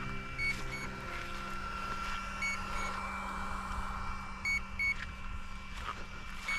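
Electronic beeping: a pair of short, high beeps repeating about every two seconds, three pairs in all, over a steady electrical hum that fades out near the end.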